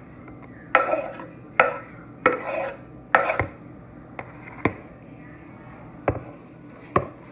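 Knife blade scraping chopped onion across a cutting board, four short strokes in a row, followed by a few separate light knocks.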